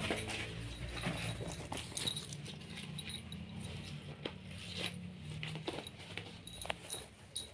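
Pet otter moving about on a bed: bedsheets rustling, with soft pattering and many small clicks, and a few brief, faint high squeaks.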